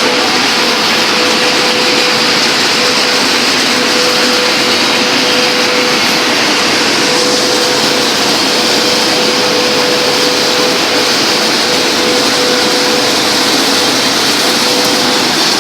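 Machinery of a sawdust wood pellet production line running steadily: a loud, even roar with a hum that comes and goes.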